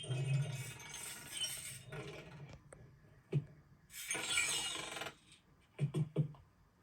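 Rustling and clattering with light clinks, in three spells, then a few sharp knocks near the end.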